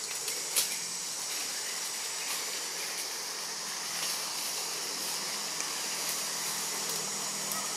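Steady high-pitched hiss of forest insects in the tree canopy, with two soft clicks in the first second.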